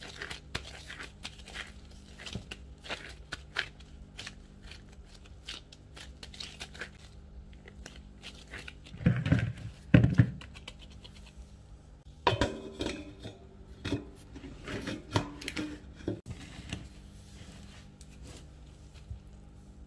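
Rubber-gloved hands handling dough and a plastic bowl: scratching, crinkling and rubbing, with two louder knocks about halfway through and a run of knocks and scrapes after them. A faint steady hum lies underneath.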